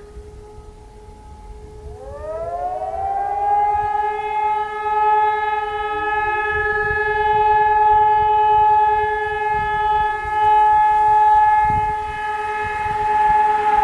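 Hörmann ECI 600 electronic fire sirens sounding the fire-brigade alarm in a test run. A lower steady tone is already sounding. About two seconds in, a second siren winds up in a rising glide to a higher tone and holds it steadily.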